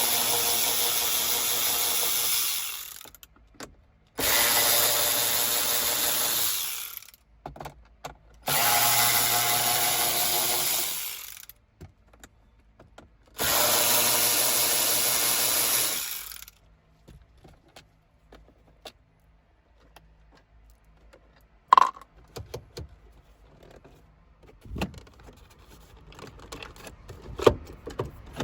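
A power drill-driver running in four bursts of about three seconds each, each run trailing off as the trigger is let go, as fasteners are backed out of the car's shifter and center-console trim. Afterwards, light clicks and knocks of parts and tools being handled, with one sharp click.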